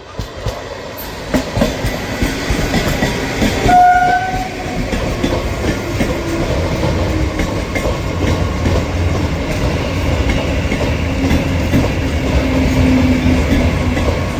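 Electric train approaching and passing at speed, growing louder over the first few seconds, its wheels clattering on the rails. A short horn blast sounds about four seconds in.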